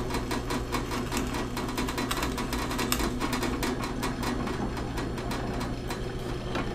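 Porter Cable PCB660DP floor drill press running with a steady motor hum, its bit boring into a block of wood with a dense rapid ticking, then the quill rising as the bit withdraws.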